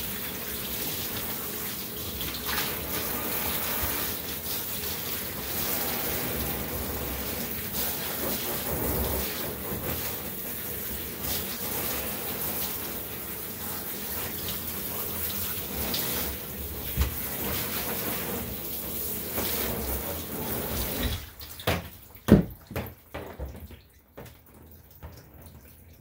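Water spraying from a handheld shower head onto a wet puppy's coat in a bathtub, a steady hiss that cuts off about 21 seconds in. A few sharp knocks and splashes follow.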